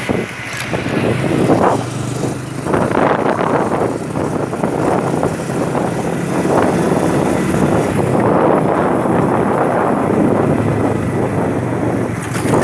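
Road traffic: motor vehicles passing close by, engine and road noise swelling and fading again and again, with a low engine hum in the first half.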